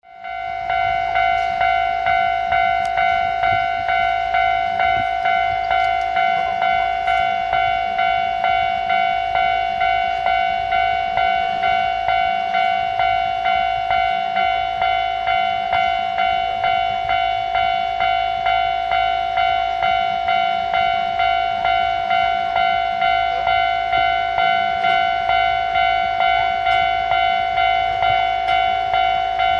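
Japanese railway level-crossing alarm ringing: an electronic bell sounding a steady, evenly repeating ding-ding, the warning that a train is approaching the crossing.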